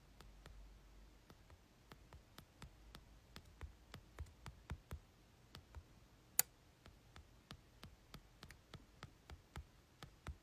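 Fingers tapping and scrolling on a smartphone touchscreen close to the microphone: a run of light, irregular clicks, two or three a second, with one sharper click about six seconds in.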